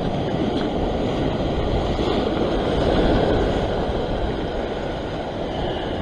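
Sea surf washing over rocks, with wind buffeting the microphone: a steady noisy wash that swells a little about halfway through.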